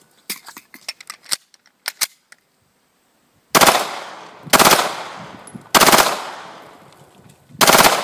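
Glock 18 9 mm machine pistol firing four short full-auto bursts, each a fast rattle of shots with a ringing tail, starting about halfway through with a second or two between them. Before the bursts, a few light clicks are heard as the pistol is handled.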